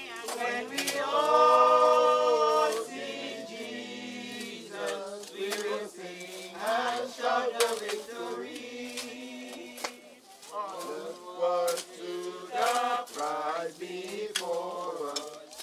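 Group of mourners singing a hymn together, loudest on a long held note about a second in.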